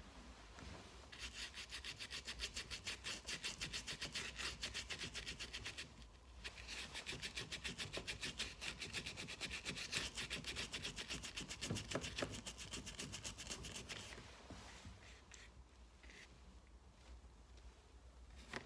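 A paintbrush's bristles scrubbing oil paint onto a linen canvas in rapid back-and-forth strokes, with a brief pause about six seconds in. The strokes turn softer and sparser about fourteen seconds in.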